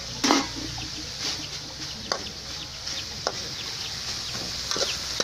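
Metal spatula scraping and knocking against a steel wok as greens and meat are stir-fried, over a steady sizzle. The loudest scrape comes just after the start, with a few sharper knocks spread through the rest.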